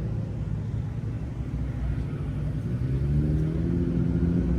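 Car engines rumbling deeply, with one engine's pitch climbing gently over the last second and a half as it speeds up: cars setting off from a car meet.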